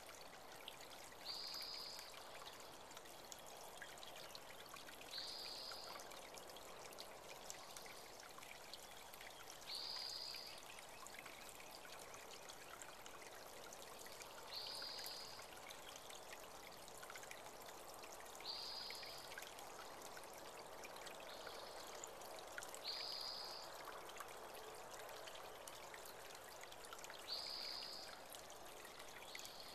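Creek water trickling and running steadily, faint, with a bird giving a short high call about every four to five seconds.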